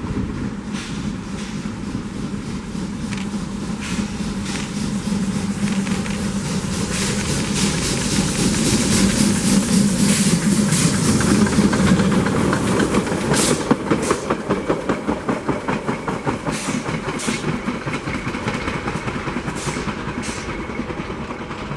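Steam locomotive FCL 353 on the narrow-gauge Sila line approaching and running past at close range with its coaches: the exhaust beats and running noise grow loud around the middle. As the coaches roll by and away, a quick, even clicking of wheels over the rail joints takes over and fades.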